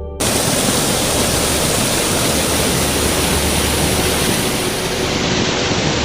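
Waterfall rushing: a loud, steady noise of falling water that cuts in abruptly just after the start.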